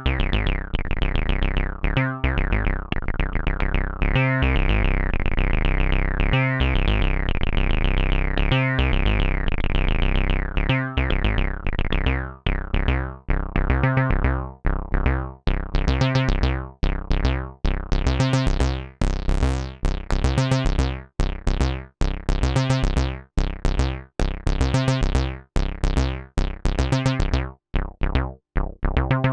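Moog Mother-32 analog synthesizer playing a repeating acid bass line, its filter sweeping open and closed so the tone swings between dull and bright, buzzy notes. From about halfway the notes turn short and detached, with gaps between them.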